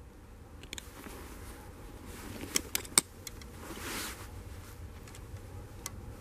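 Distant ČSD class 751 diesel locomotive running as it approaches with a freight train, heard as a steady low rumble. A few sharp clicks close to the microphone come about halfway through, followed by a brief rise of hiss.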